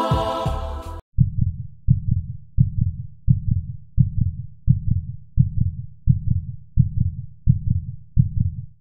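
Heartbeat sound effect: low, deep double thumps repeating evenly about every 0.7 seconds. In the first second the tail of the intro music plays, cutting off suddenly about a second in.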